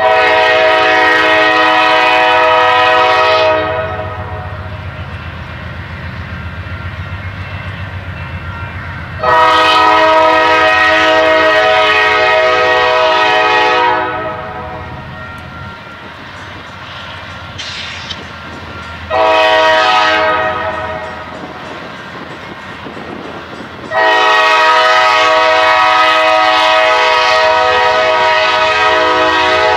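GE Dash 9 diesel locomotive's air horn sounding a chord of several notes in four blasts, long, long, short, long: the standard signal for a grade crossing ahead. Between the blasts the locomotive's diesel engine rumbles low as the freight train accelerates toward the listener.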